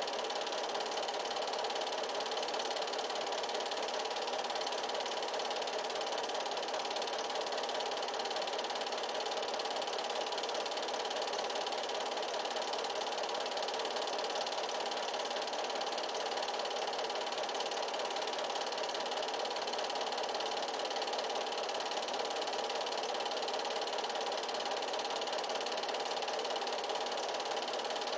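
8mm film projector running: a steady mechanical whirr of the film transport that does not change.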